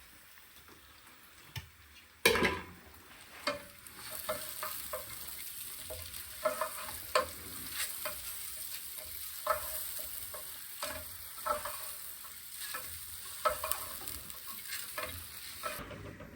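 Food sizzling in a pan while a spoon stirs and scrapes against the pot in short, irregular strokes, with a sharp clank about two seconds in. The sizzling starts about four seconds in.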